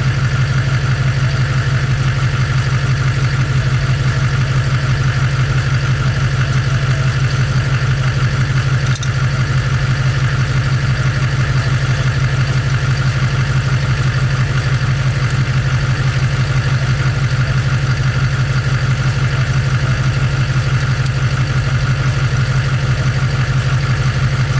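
An engine or motor running steadily at a constant speed, with a strong low hum and a fast, even pulse. There is one short knock about nine seconds in.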